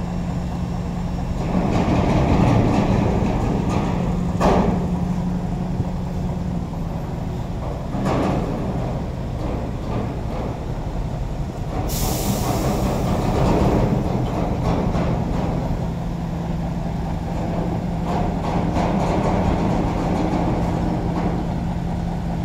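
Heavy cab-over diesel truck engine idling steadily, its rumble swelling for a couple of seconds early on. A sharp metal clank comes about four and a half seconds in and a lighter one near eight seconds, then a short air-brake hiss about twelve seconds in.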